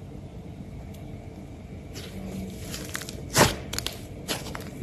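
Thick slime being folded and then pressed under a hand: quiet at first, then a few sharp pops and squelches from about three seconds in, the loudest one first.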